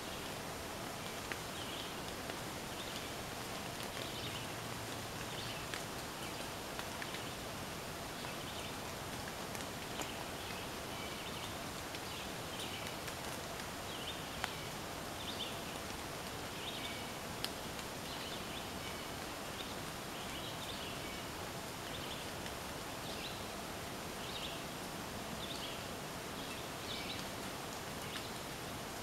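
Woodland ambience: a steady hiss, with short high-pitched calls from a small animal repeating every second or so. A few sharp ticks come at scattered moments.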